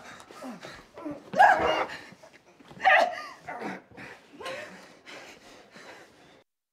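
A woman's wordless cries and grunts of effort as she struggles against being held down, in several short outbursts that grow fainter and then cut off near the end.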